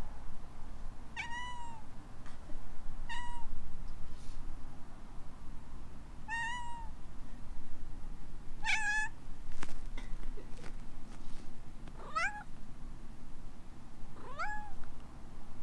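A kitten meowing in short, chirpy calls, about six of them a second or two apart, the last two rising in pitch.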